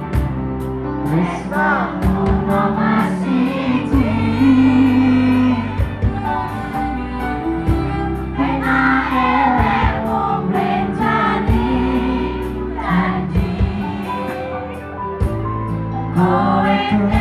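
Live dangdut band music with singing over a steady drum beat, played loud through a stage sound system.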